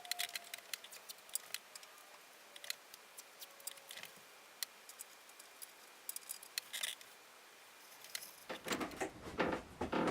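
Irregular sharp light clicks and ticks, like small metal objects being handled, then a stretch of louder clattering and rustling handling noise about eight and a half seconds in.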